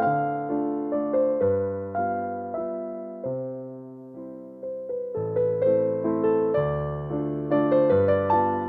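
Background music: a gentle electric piano melody with chords, its notes struck several times a second, thinning out briefly in the middle.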